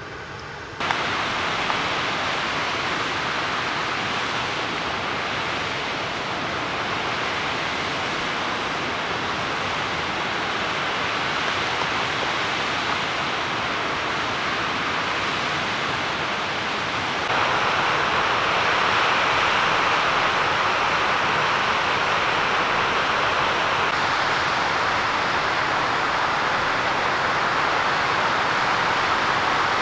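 Steady rush of a mountain waterfall cascading over rocks, a constant noise of falling water with no let-up, stepping louder a little past halfway.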